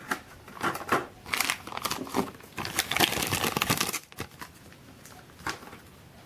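Thin clear plastic bag crinkling in the hands as a small plastic figure is worked out of it, in irregular bursts for about four seconds, then quieter with a few faint ticks.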